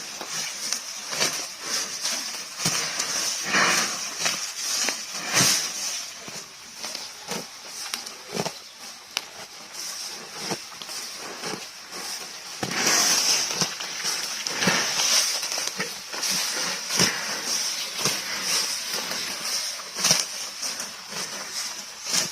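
Water buffalo grazing close up: irregular snaps and rips of grass being torn off and chewed, coming in uneven clusters. A steady high hiss runs underneath.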